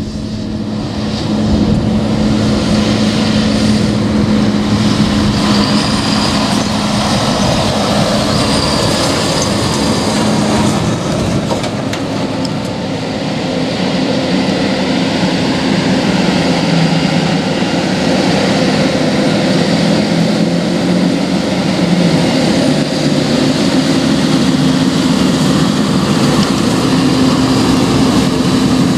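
JCB Fastrac 4220 tractor driving past towing a grain trailer: a steady engine drone mixed with tyre and trailer noise.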